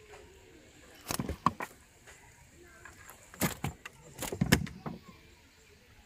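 Three short bursts of knocks and rattles from a fish and fishing line being handled on a wooden boat's planks: about a second in, at three and a half seconds, and again around four and a half seconds.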